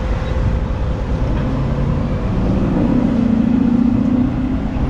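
Highway traffic passing: a steady rumble of cars and tyres. From about two seconds in, one vehicle's engine note stands out above it.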